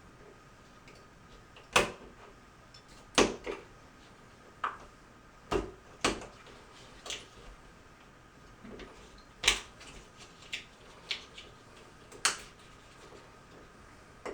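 Irregular sharp clicks and knocks of hand work on a plastic floor-heating membrane, about a dozen of them a second or so apart, over a faint steady hum.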